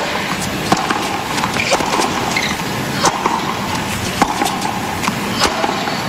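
Tennis ball hit back and forth in a baseline rally on a hard court: several sharp racquet strikes about a second apart over a steady background hiss.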